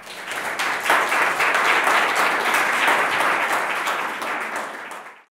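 Audience applauding, building up within the first second, easing off after about four seconds and cutting off abruptly near the end.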